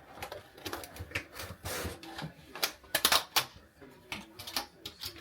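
Irregular clicks, knocks and short rustles of objects being handled, busiest about three seconds in.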